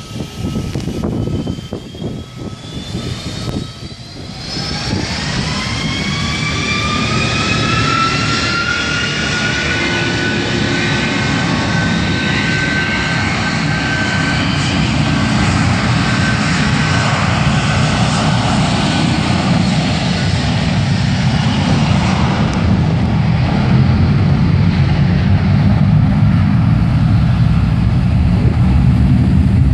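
Boeing 757 twinjet's engines spooling up to takeoff thrust for the takeoff roll. A whine climbs in pitch over several seconds, starting about four seconds in, then holds steady. A deep jet rumble builds under it and grows louder toward the end.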